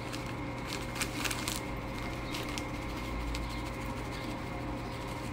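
Dried oregano shaken from a plastic bag onto raw chicken pieces in an aluminium tray: faint scattered ticks and rustles over a steady low hum.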